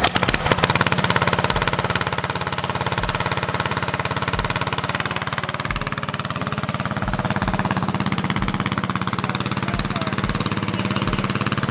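Small single-cylinder Briggs & Stratton flathead engine on a mini bike running steadily at idle, with a fast, even beat.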